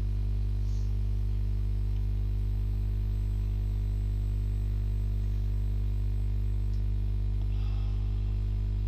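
A steady low drone of several sustained tones, unchanging throughout.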